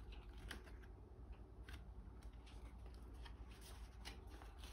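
Faint rustling and soft ticks of a picture book's paper pages being handled and turned, over a low steady room hum.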